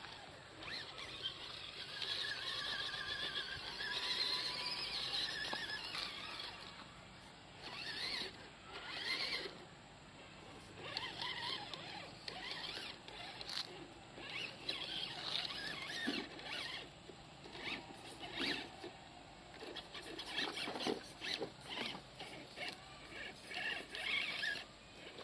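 Electric motor and gearbox of an RGT RC rock crawler whining under throttle, wavering in pitch early on, then coming in many short bursts as the throttle is blipped on the climb, with scattered clicks.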